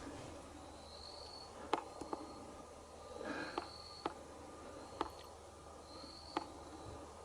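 Quiet room ambience with a short high-pitched chirp repeating roughly once a second and a few faint, sharp clicks scattered through it.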